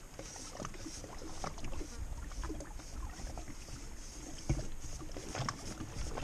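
Water lapping at the bank, with wind rumbling on the microphone and a few small knocks of fishing tackle, the sharpest about four and a half seconds in.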